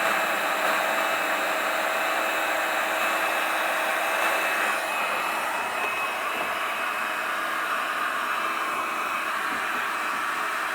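Electric hot air gun running steadily, a constant rushing blow with a faint whine, directed at a damp distributor to dry out the ignition so the engine will start.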